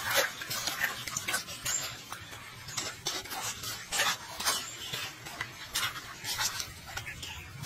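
Hands splashing water and rustling green chilies, lemongrass and herbs in a wicker basket while rinsing them, an irregular run of wet crackles and splashes.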